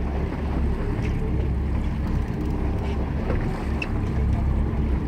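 Wind buffeting the microphone over the low, steady rumble of a fishing boat.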